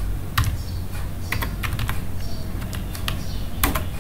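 Computer keyboard being typed on: a handful of irregular, separate keystrokes over a steady low hum.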